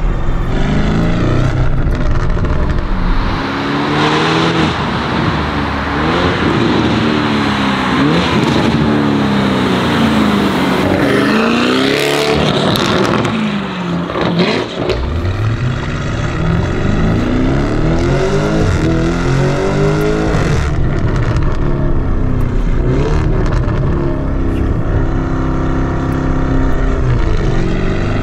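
Lamborghini Urus Esteso's twin-turbo V8 through a Novitec sports exhaust, pulling hard under acceleration. The revs climb and drop back again and again through the gear changes, with a brief lull about halfway before it pulls again.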